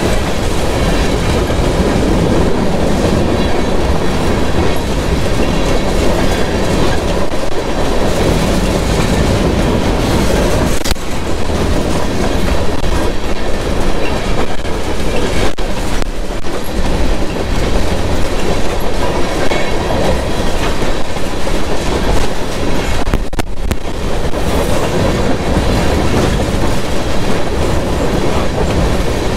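A freight train of covered hopper cars rolling past, a steady loud rumble with the wheels clacking over the rail joints.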